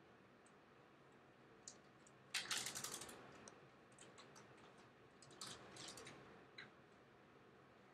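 Faint clicking and tapping of a computer keyboard and mouse, in two short quick runs about two and a half and five and a half seconds in, with a few single clicks between.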